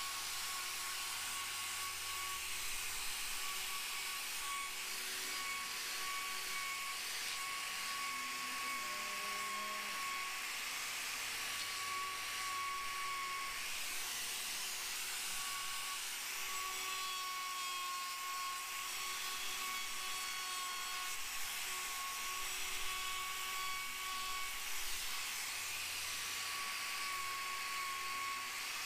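Electric angle grinder with an abrasive disc running with a steady high whine, grinding down the horn of a cow's hoof claw to level the sole.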